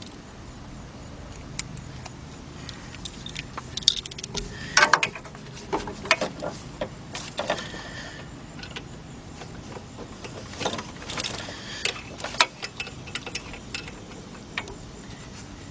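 Wrench clinking and scraping against metal in a car's engine bay as a stubborn bolt is worked on: a run of irregular metallic clinks and rattles, some ringing briefly, loudest around five and again around eleven seconds in.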